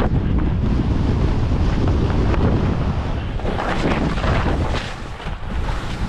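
Wind buffeting the microphone of a skier moving downhill, with the hiss of skis on snow swelling in surges, strongest about halfway through.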